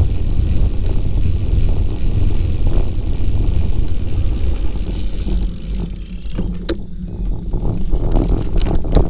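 Wind rushing over the microphone and rumble from a bicycle riding along a trail: a steady low rumble. It dips briefly about six seconds in, and a few sharp clicks follow.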